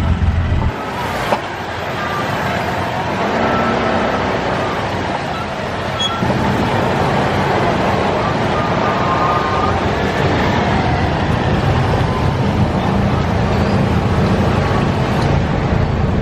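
Street traffic: motor vehicle engines running in slow, heavy traffic with a steady hiss. A loud low engine hum drops away under a second in.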